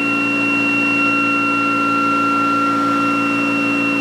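Electric prime mover and ReGen-X generator spinning at a steady speed of about 3,400 RPM, a constant motor whine with several fixed high tones over a hum. The generator coils are on load, charging batteries.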